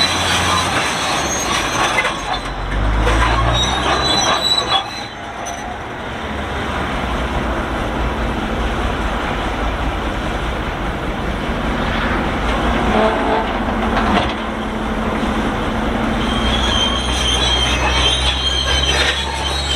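Shantui SD32 crawler bulldozer creaking and squealing metallically as it works, like an unlubricated cart, over its steady diesel engine. The high squeal is strongest near the start and again near the end.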